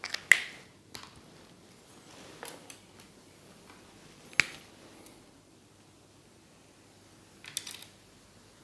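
Whiteboard marker on the board: a few sharp clicks and taps, the loudest just after the start and another about halfway, then a brief squeaky scrape near the end as a line is drawn.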